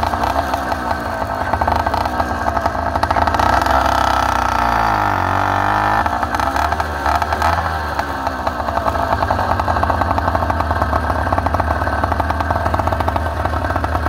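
Motorized bicycle's small two-stroke engine running while riding. Its pitch drops about four seconds in, as the bike eases off, and climbs again about six seconds in.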